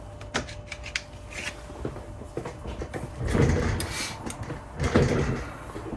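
Metal bar clamps being handled: a few light clicks, then two longer sliding, scraping sounds about three and five seconds in.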